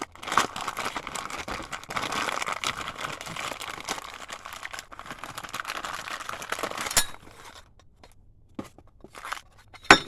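Packaging being crinkled and torn open by hand as a parts kit is unwrapped, ending with a sharp click about seven seconds in, then a few light clicks.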